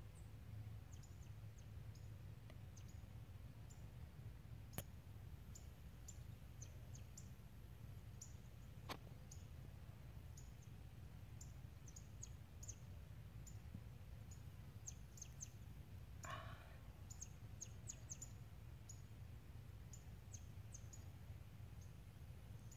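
Quiet outdoor background: a faint low rumble with scattered high chirps throughout, two sharp clicks about five and nine seconds in, and a brief call about sixteen seconds in.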